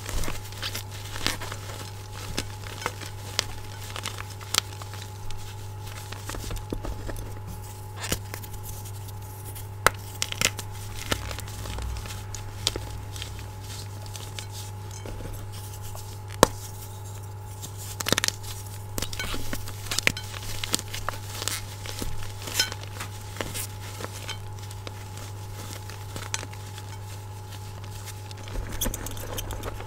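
Blocks of gym chalk crushed and crumbled between bare hands in a glass bowl: irregular crunching and crackling of breaking chalk and powder, with a sharper snap now and then, over a steady low hum.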